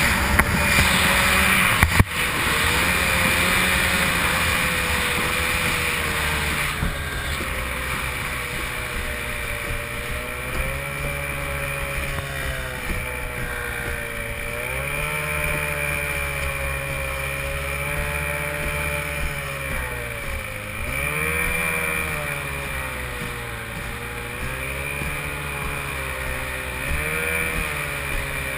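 Two-stroke stock-class racing outboard on an A-Stock hydroplane, running hard at race speed. Its pitch wavers and dips several times with throttle and the hull's bouncing over a hiss of wind and spray, with a sharp knock about two seconds in.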